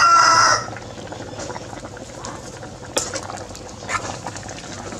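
Pot of vegetable and chicken soup bubbling steadily at a simmer, with a few light clicks and splashes, one as a hand reaches into the pot near the end. A loud, brief pitched call opens it and is over within about half a second.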